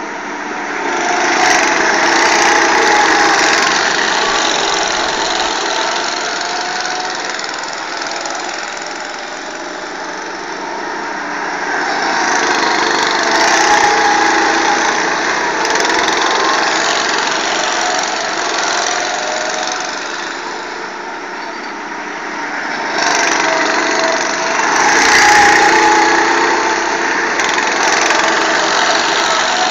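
Go-kart engines buzzing as several karts drive round the track. The sound swells louder three times as groups of karts pass close by.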